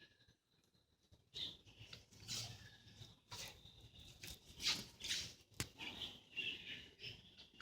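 Birds fluttering their wings and rustling in short, scattered spurts, with brief chirps in the second half.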